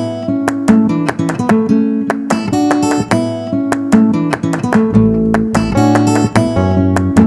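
Background music: acoustic guitar picked in quick notes, with a bass line coming in about five seconds in.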